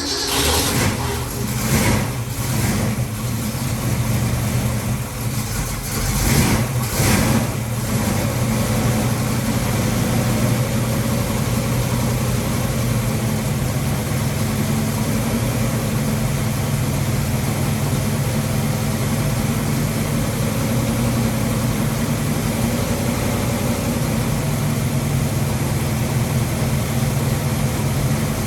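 Freshly rebuilt Ford 331 stroker small-block V8 running on choke just after catching, revved up a few times in the first eight seconds, then settling into a steady fast idle with no tapping noise.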